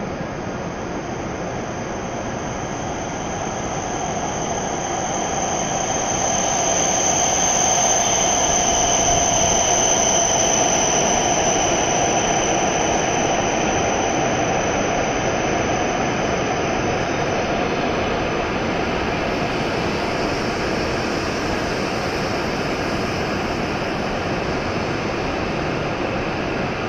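W7 series Shinkansen train pulling into the station and slowing to a stop. A rush of wheel and air noise grows over the first several seconds and then holds steady, with a thin high whine over it that fades out about two-thirds of the way through.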